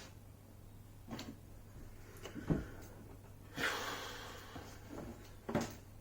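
A few separate clicks and knocks of small metal parts and a screwdriver being handled in the workings of a coffee machine, the loudest and dullest about halfway through. A short scraping rustle starts a little past halfway, and a low hum runs underneath.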